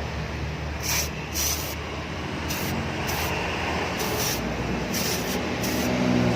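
Aerosol can of engine degreaser spraying in a series of short hissing bursts onto the engine, over a steady low hum.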